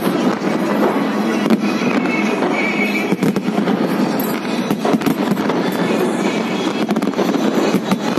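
Fireworks going off in quick succession: a dense, continuous crackle with many sharp bangs.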